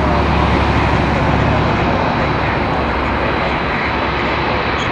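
Boeing 787-8 Dreamliner's twin turbofan engines running steadily as the airliner taxis, a loud continuous rumble and rush of jet noise.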